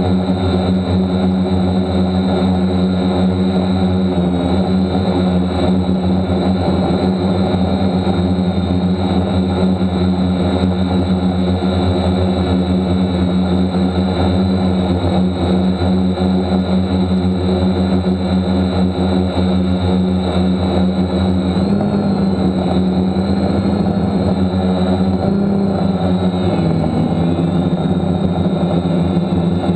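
DJI F550 hexacopter's brushless motors and propellers running in flight, a loud steady drone heard close up from a camera on the frame. Its pitch shifts a few times in the last third as the motors change speed.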